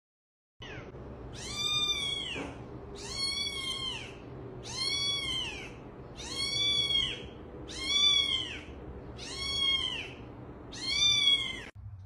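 A kitten meowing seven times, evenly spaced about every second and a half. Each call is a high mew that rises and falls.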